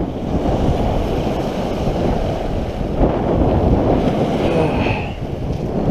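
Small waves breaking and washing on a shingle beach, with wind buffeting the microphone in a steady, heavy rumble.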